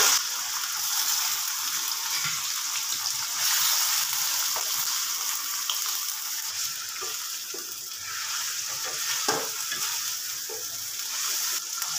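Raw, freshly washed chicken pieces sizzling in hot oil with browned onions in an aluminium pot as they start to brown, while a wooden spoon stirs them, with a few light knocks and scrapes of the spoon against the pot.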